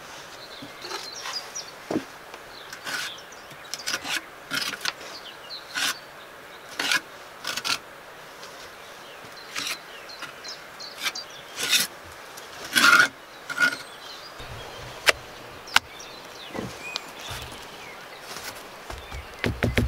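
Bricks being set in wet mortar by gloved hands: irregular short scrapes of mortar being pressed and smoothed over brick, with a few light knocks and sharp clicks as bricks are shifted into place.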